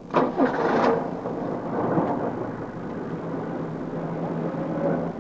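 A car engine running as the car moves off, opening with a sudden loud burst of noise and settling into a steady hum.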